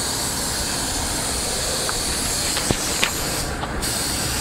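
Gravity-feed air spray gun hissing steadily as it sprays paint. The hiss breaks off briefly about three and a half seconds in, and two short sharp clicks come just before that.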